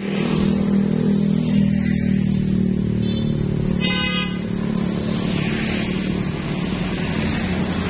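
Road traffic: a motor vehicle's engine running close by, easing off after a few seconds, and a vehicle horn sounding twice, a short toot about three seconds in and a longer one about a second later.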